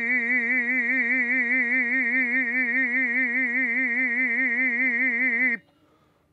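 A man singing one long held note with a strong, even vibrato, cutting off about five and a half seconds in.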